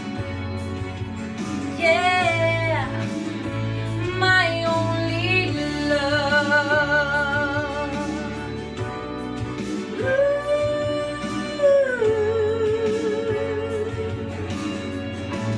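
A woman singing long held notes with vibrato and sliding runs, no clear words, over a backing of guitar and a steady bass line.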